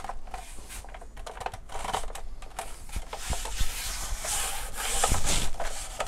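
Hands rubbing and sliding over the plastic housing of a large LED ring light as it is turned over, a scratchy rubbing that grows louder in the second half, with a few light knocks of the plastic.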